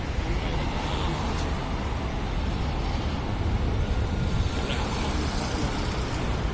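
Steady low rumble of a car driving along the road, the engine and tyre noise heard from inside the cabin.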